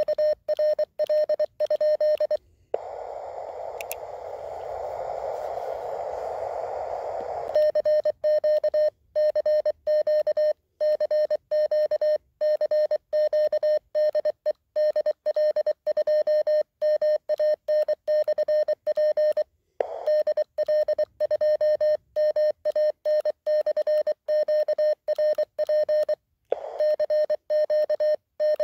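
Morse code (CW) sidetone from a (tr)uSDX QRP transceiver through a small speaker: a single steady beep keyed on and off in dots and dashes, sent with a palm key paddle. About two and a half seconds in, the keying stops for about five seconds of hissing receiver band noise, then the keying resumes and runs on.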